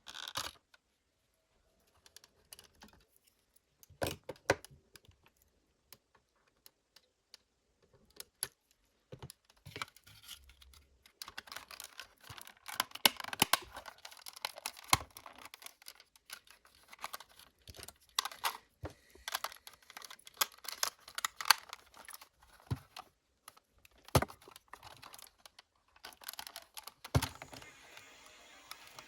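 Small plastic and metal parts of a portable cassette player being handled and worked on by hand. Scattered single clicks come first, then about fifteen seconds of dense, light clicking and rattling, and a few louder clicks near the end.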